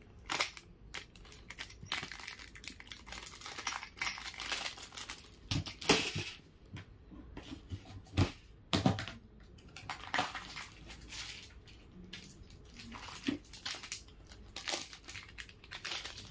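Plastic packaging crinkling and rustling with scattered clicks and taps, as jewelry is handled and taken out for display.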